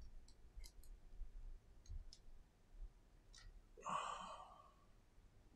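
Faint, sparse light clicks of small repair tools and parts handled in an opened iPhone SE 2020, then a soft rushing sound lasting about a second, about four seconds in.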